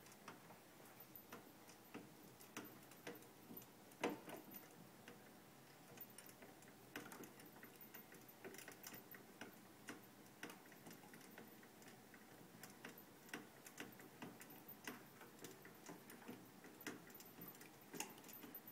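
Faint, irregular light clicks and ticks from a homemade mechanical doll's metal rod linkages and wooden base, a few a second, with a louder knock about four seconds in and another near the end.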